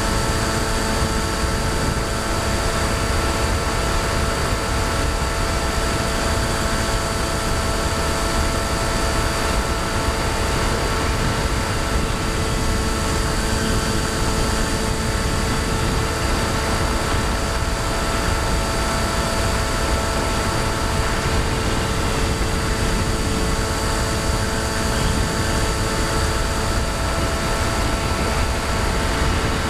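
Brushless electric motor and pusher propeller of a Bixler 2 RC plane in flight, heard from a camera on the plane: a steady whine made of several held tones, over a low rumble of wind on the microphone.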